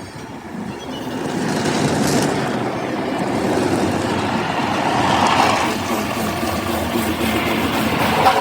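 Steady rushing car noise that swells about a second in and holds.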